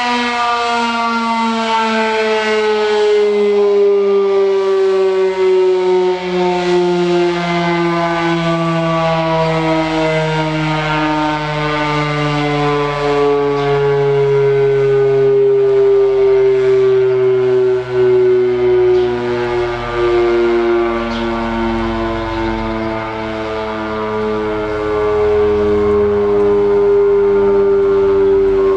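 Federal Signal Model 7 outdoor warning siren sounding its single steady tone, loud, with the pitch sliding slowly and evenly lower throughout. The falling pitch fits the rotor coasting down at the end of the 3-minute alert.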